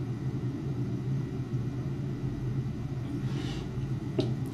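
Steady low hum, with a soft rustle about three and a half seconds in and a single light tap near the end as a 3D-printed plastic part is set down on a rubber mat.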